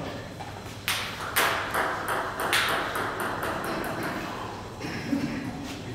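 Table tennis ball bouncing: a run of light, sharp taps, a few louder ones in the first couple of seconds, then quicker, fainter ones.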